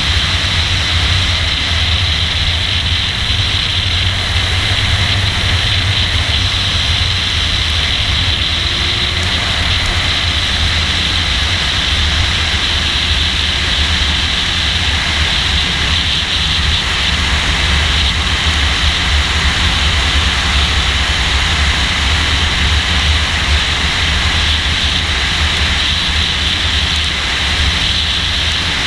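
Car driving at speed, heard from a camera mounted outside on its hood: a steady rush of wind and road noise over a low rumble, with no clear rises or falls in pitch.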